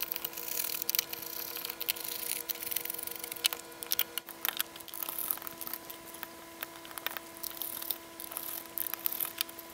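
Hands handling and opening the plastic case of a handheld oscilloscope: irregular clicks, taps and rustles of plastic parts and fingers. A faint steady hum sits underneath.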